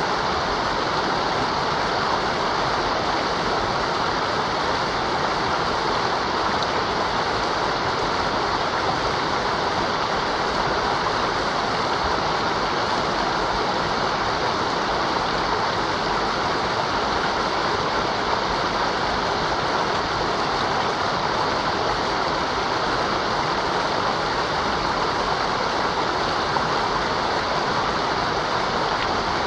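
Mountain river rushing steadily over rocks, a constant even roar of flowing water.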